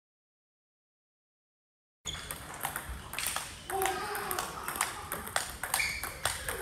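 Dead silence for about two seconds, then a table tennis rally starts: the ball clicks sharply and quickly, again and again, off the paddles and the table.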